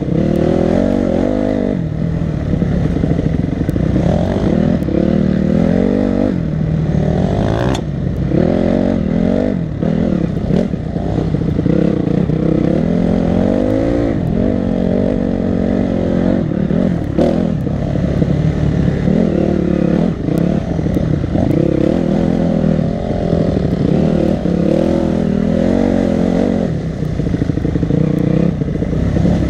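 Enduro dirt bike engine revving up and down constantly as it is ridden hard over a rough dirt trail, with occasional sharp knocks and rattles.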